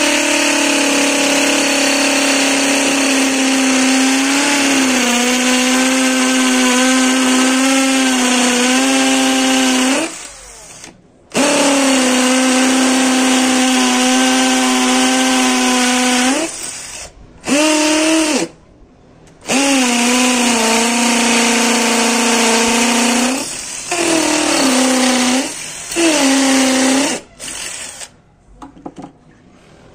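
WAP K21 21-volt cordless drill-driver drilling into a concrete block: a steady motor whine with the bit grinding in the stone, dipping a little in pitch as it is pressed harder. It runs about ten seconds, stops briefly, runs about five more, then comes in several shorter bursts before stopping near the end.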